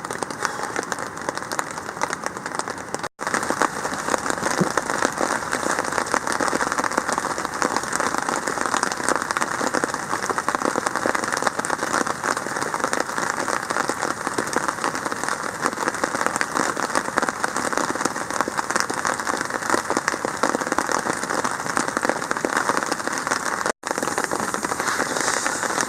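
Steady rain falling, a dense even hiss of drops.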